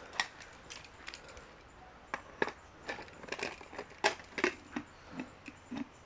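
About a dozen irregular knocks and cracks, a few sharp and loud, some with a short low thud, coming at uneven gaps.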